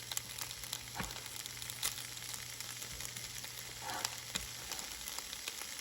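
Fried rice sizzling steadily in a wok over medium-high heat, with a few light knocks scattered through it.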